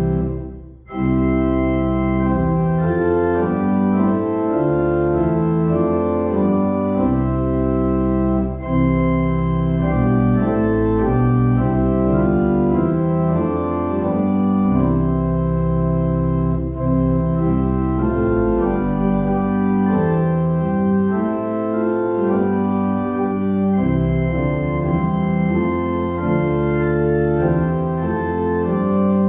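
Organ playing a hymn in sustained full chords that change step by step, with a short break about a second in and brief breaths between later phrases.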